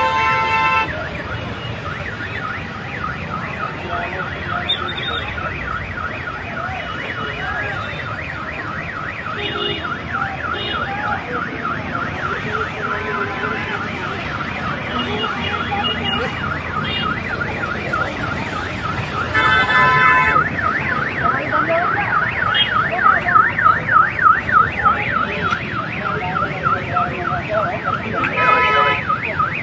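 An electronic siren warbling in a fast, repeating cycle over a haze of road traffic. Vehicle horns honk about twenty seconds in and again near the end.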